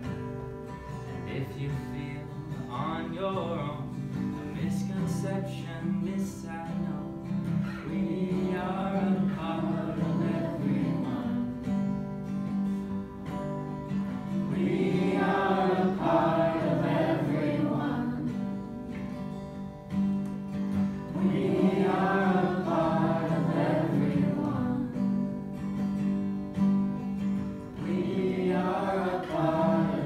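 A song: steady strummed acoustic guitar with a voice singing phrases over it, the singing coming back every few seconds.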